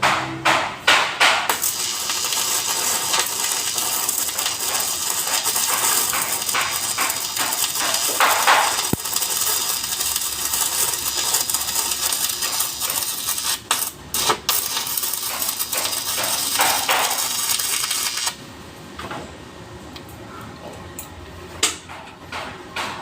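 Stick (arc) welding rod burning: a steady, dense crackling sizzle lasting about sixteen seconds, which cuts off suddenly. A few sharp metal taps come before it and a few more follow.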